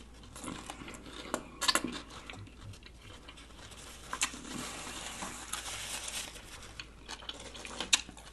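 Quiet chewing of a lettuce-wrapped sub sandwich, with a few sharp mouth clicks and soft crinkling between bites.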